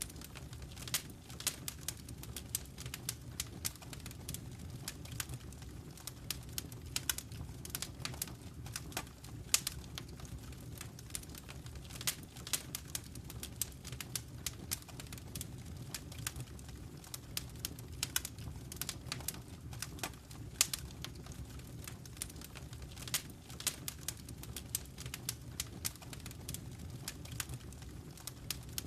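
Wood fire crackling in a fireplace: frequent sharp, irregular pops and snaps over a steady low rumble of flame.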